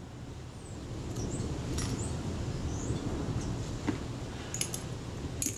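A few light, sharp clicks of small metal camera parts and tweezers being handled, over a steady low background hum, with faint high bird chirps now and then.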